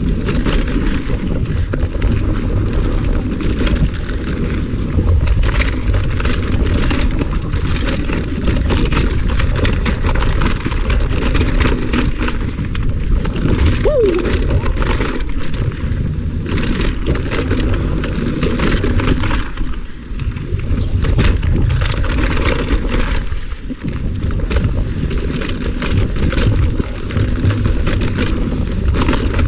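Mountain bike descending a dirt flow trail at speed: heavy wind buffeting on the camera microphone over the steady rush of knobby tyres on packed dirt, with frequent rattles and knocks as the bike runs over roots and bumps. A brief falling squeak near the middle.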